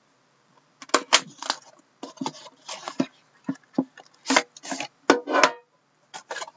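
Plastic shrink wrap crinkling and crackling in irregular bursts, with a few sharp clicks, as a sealed trading-card box is unwrapped and its inner box handled.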